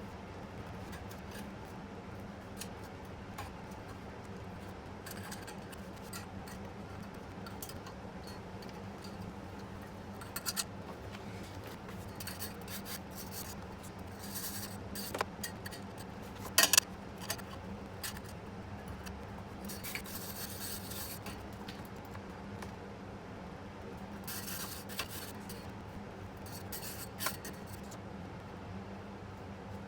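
Wire brush scrubbing and scraping the ends of motorcycle exhaust pipes to clean them before new silencers go on: short bursts of scratchy brushing and scattered metallic clicks over a steady low hum, with one sharp click about two-thirds of the way through.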